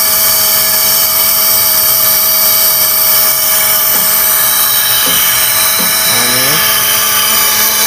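Air-driven (pneumatic) pilot ladder winch running, a steady high-pitched whine with a constant hiss of air.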